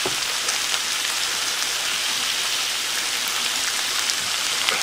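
Pork belly, onion and cabbage sizzling steadily in a frying pan, with a few sharp crackles of spattering fat. No oil was added: the pork is frying in its own rendered fat.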